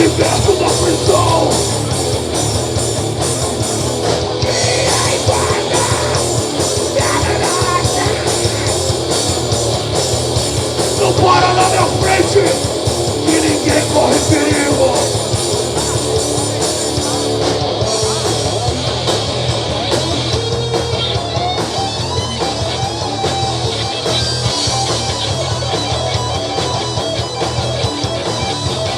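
Rock music played by a band: electric guitar over a steady drum beat.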